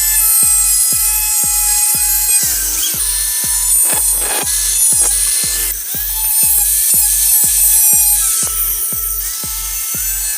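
Background electronic music with a steady beat of about two low kicks a second under held and gliding synth tones, and a brief swell about four seconds in.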